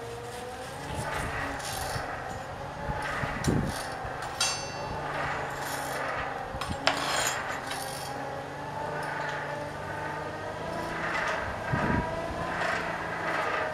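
Iron bars and a poker clinking and scraping in a coal forge fire as the coals are stirred, with a few sharp clanks, one leaving a brief metallic ring, over a steady low hum.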